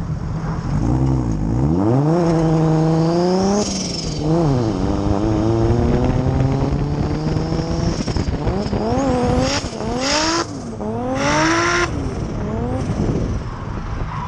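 Z car's engine through its newly fitted 3-inch muffler, revving hard several times, the pitch climbing steeply and dropping back again and again, with a run of quick rev rises near the end before it falls off.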